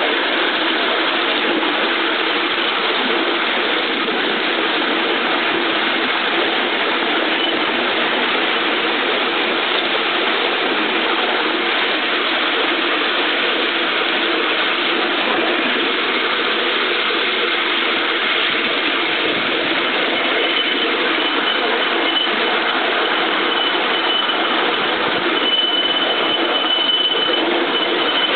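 A 5-inch gauge King Arthur class live-steam locomotive running along its track, heard close up from the riding car behind it as a steady mechanical clatter. A faint high, steady tone comes in about two-thirds of the way through.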